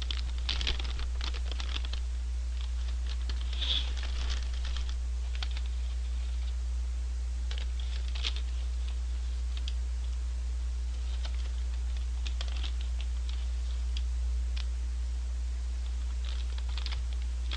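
A paper fries bag crinkling and rustling in the hands, with a few crunches of fries being chewed, as short scattered clicks and crackles over a steady low hum.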